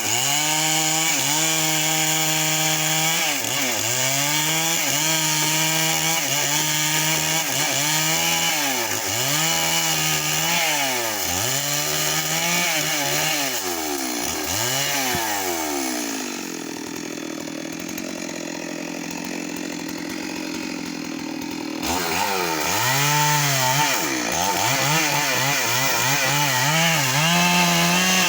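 Stihl MS 382 two-stroke chainsaw cutting into a mahogany trunk at full throttle, its engine note repeatedly pulled down under load and recovering. It eases off for several seconds past the middle, then goes back to cutting with the same sagging and recovering pitch.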